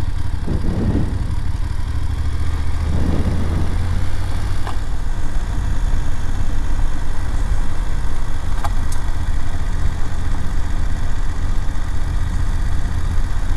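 BMW F750GS parallel-twin engine running as the motorcycle rolls at low speed along a gravel road, with a steady low rumble. The engine note rises briefly twice in the first few seconds.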